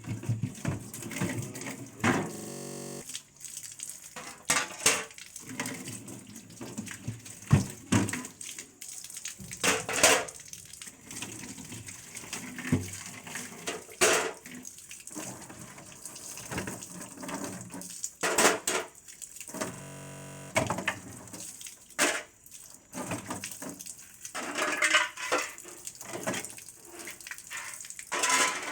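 Water being sprayed onto built-up ice in a refrigerator's freezer compartment, with irregular knocks and clattering throughout as the ice is worked loose.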